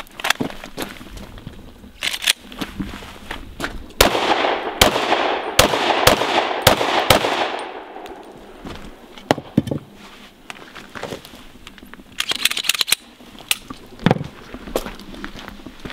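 Glock 19 9 mm pistol firing six shots in quick succession over about three seconds, each shot echoing across the range.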